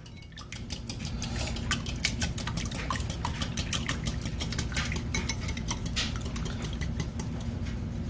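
Wire whisk beating eggs in a ceramic bowl, its wires clicking against the sides of the bowl in a quick, even rhythm of several strokes a second.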